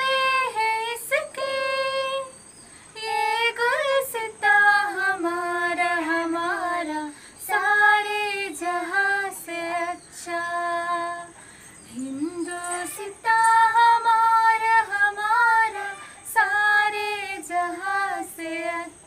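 Girls and young children singing a song together in unison, in phrases of held notes separated by short pauses for breath.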